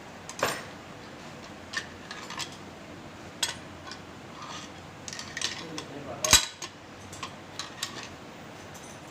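Metal tools and parts clinking and knocking as pieces are fitted, with scattered light clinks and one louder knock about six seconds in.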